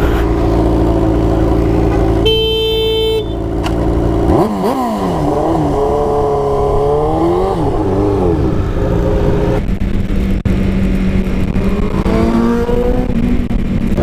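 Honda CBR 300R's single-cylinder engine running steadily, then revving up and down through the middle as the bike pulls away and shifts, then settling again. A short horn blast sounds about two seconds in.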